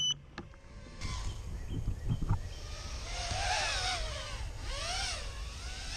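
FPV racing quadcopter's brushless motors and props whining, the pitch rising and falling in arcs as the throttle changes, over low wind rumble.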